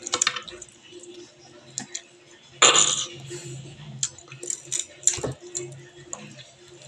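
Mouth sounds of a man eating sour calamansi: wet lip smacks and small chewing clicks, with one short, loud, hissing burst about two and a half seconds in.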